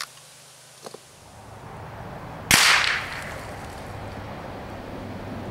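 A single sharp shot from a .22 rimfire rifle about two and a half seconds in, with a brief tail as it dies away. A couple of faint clicks come about a second in.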